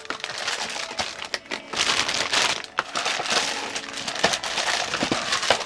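Clear plastic bags holding model-kit parts runners crinkling and rustling as they are handled and lifted out of a cardboard box, with a few light knocks.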